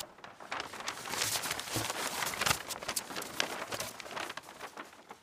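Paper wrapping crackling and rustling as it is pulled off a large framed photograph, a dense run of crinkles that dies away near the end.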